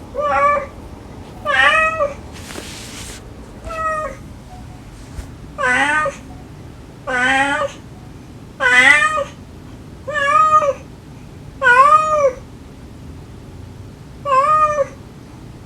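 A cat meowing over and over: about nine short meows, each rising and then falling in pitch, spaced one to two seconds apart. About two and a half seconds in there is a short burst of hiss-like noise.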